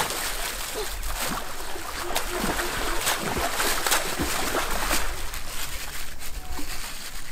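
Water splashing and sloshing mixed with rustling, clicking handling noise, busiest in the first five seconds and thinning toward the end.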